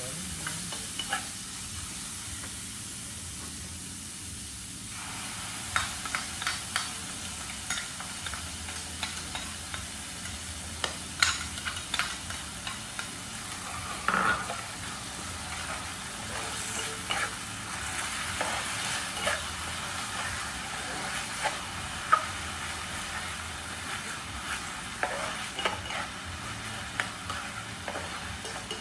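Rice and vegetables sizzling in a frying pan on a portable gas stove while being stir-fried, with a plastic spatula scraping and tapping against the pan at irregular intervals.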